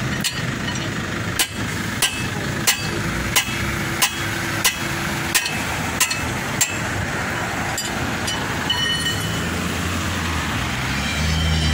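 Hammer blows ringing on the bare wheel hub of a truck, about ten evenly spaced strikes, roughly three every two seconds, that stop about two-thirds of the way through. A vehicle's engine rumble rises near the end.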